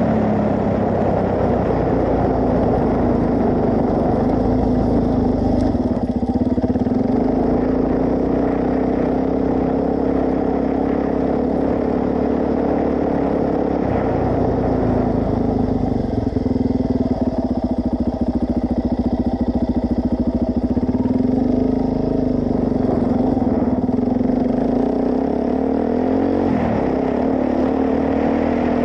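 Suzuki DR-Z400S single-cylinder four-stroke engine running while riding, its speed holding fairly steady with small rises and dips.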